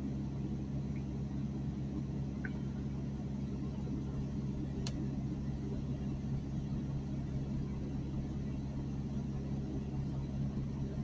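A steady low background hum of several even tones, with a faint click a little under five seconds in.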